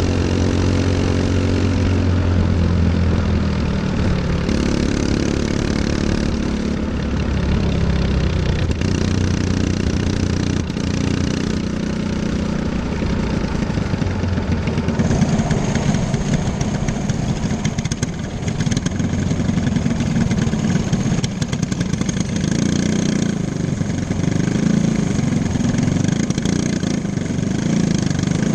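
Racing go-kart engine heard close up from on board, running at low revs: a steady even drone for the first few seconds, then rougher and uneven as the kart rolls slowly up to the other karts.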